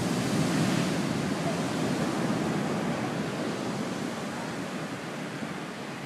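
Ocean surf: a large wave breaking and its whitewater rushing up the beach, a steady rush that slowly fades.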